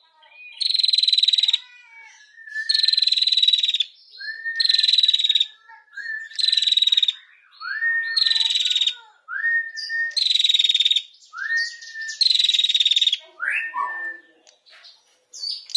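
Female prenjak (a small Indonesian songbird) 'ngetir': a series of about eight harsh, rattling trills, each under a second long and coming about every two seconds. Each trill is led in by a short rising note.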